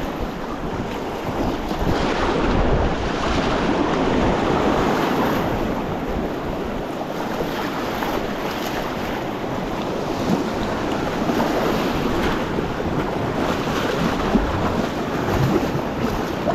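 Rushing whitewater of a shallow river rapid around a kayak, with splashes from paddle strokes and some wind buffeting the microphone.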